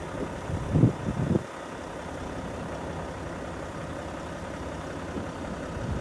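Steady low outdoor rumble with a short burst of louder low buffeting about a second in. No bird calls are heard.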